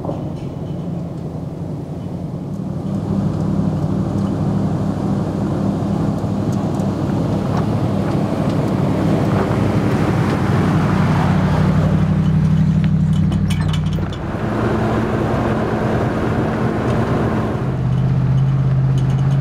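Off-road vehicle engines running at low speed with tyres rolling over a dirt track. The engine note steps to a different pitch about fourteen seconds in and again near the end.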